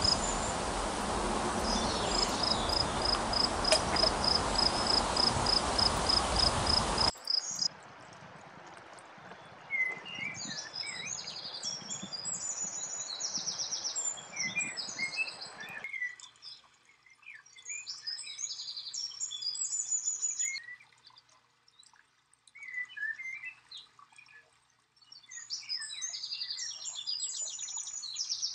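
A loud steady hiss carries a fast, even run of high chirps, about five a second, like a cricket's, and cuts off suddenly about seven seconds in. After that a small songbird sings short phrases of high chirps and trills, four of them, with brief pauses between.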